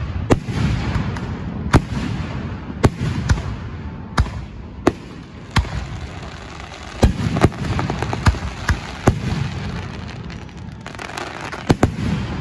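Aerial fireworks shells bursting in a steady barrage: a dozen or more sharp bangs at irregular intervals over a continuous low rumble, with a quick cluster of cracks near the end.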